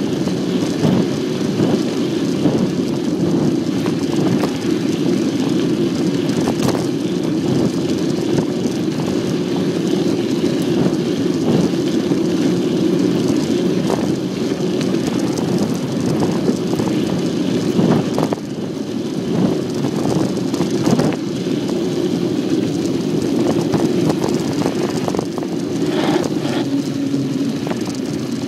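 Bicycle riding over a rough trail: a steady rumble of tyres and jolting, with scattered knocks and rattles from bumps.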